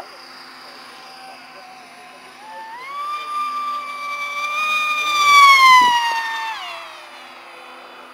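High-pitched whine of the electric Multiplex Funjet's motor and propeller on a 6S setup. It builds from about two and a half seconds in to a loud fly-by, then drops in pitch and fades.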